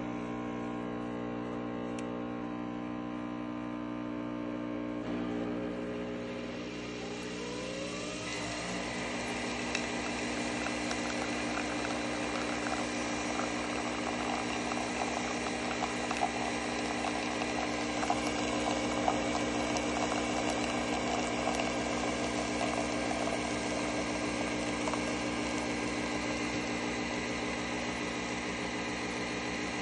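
Nespresso capsule coffee machine brewing. Its motor and pump hum steadily, rise in pitch about six to eight seconds in, then run on as a steady whir while coffee streams into the mug.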